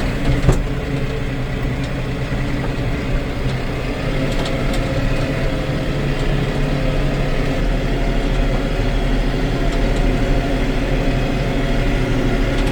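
Farm tractor engine running steadily, heard from inside the cab, with one sharp knock about half a second in.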